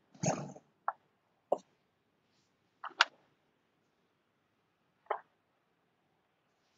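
About five short, separate clicks and pops, the first a little longer, with dead silence between them.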